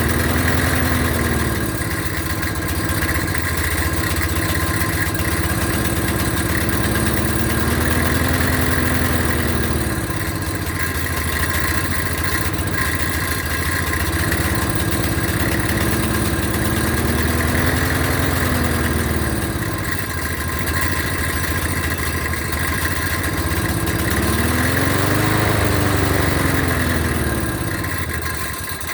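Yard Machines lawnmower engine running below operating speed, its revs slowly rising and falling about every eight seconds. It is surging and will not come up to full throttle, even after the carburetor was cleaned.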